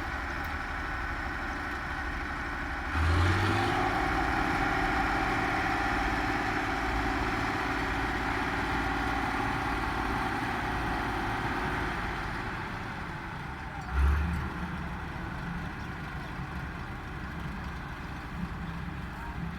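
A farm machine's engine running steadily. About three seconds in it grows louder, with a brief rising tone as it picks up, then it eases back near twelve seconds. A short low thump comes about fourteen seconds in.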